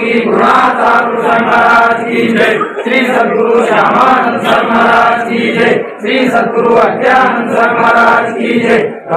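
A crowd of devotees chanting a devotional aarti together in unison, men's voices to the fore, with sharp beats keeping time through the chant.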